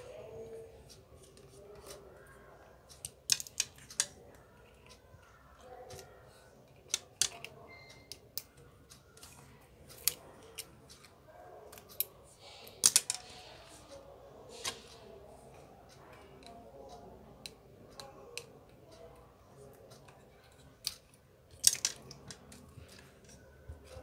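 Irregular sharp clicks and taps of small tools and tablet parts being handled: a screwdriver and plastic pry tool working on an opened tablet, its parts knocking against each other and the mat. The loudest clicks come in quick clusters about halfway through and again near the end.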